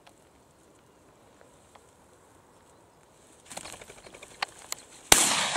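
Hen pheasant flushing, with a whirr of wingbeats and rustling starting about three and a half seconds in, then a single loud shotgun shot near the end with a long fading tail.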